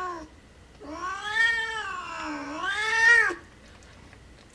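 A mother cat in labour, calling. The tail of a short meow comes first, then one long, loud yowl that rises, dips and rises again in pitch before it breaks off.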